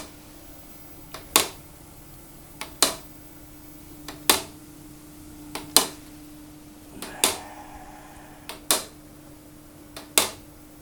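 PR700 machine running with a steady hum and a sharp click about every one and a half seconds, each with a fainter click just before it. This is the abnormal noise, which the owner suspects is the belt riding up.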